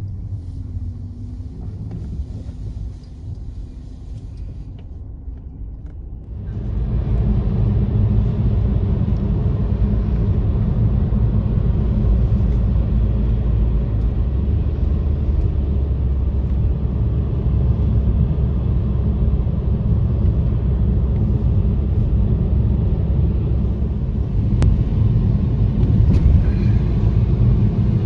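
Car driving, a steady low rumble of engine and road noise that gets sharply louder about six seconds in and then holds steady.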